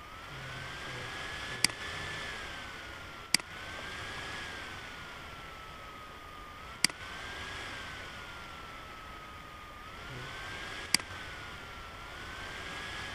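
Simulated CNC lathe machining sound from the Swansoft simulator: a thin whine that slowly rises and falls in pitch over a steady hiss as the turning program runs. Four sharp clicks come in, at about 2, 3, 7 and 11 seconds.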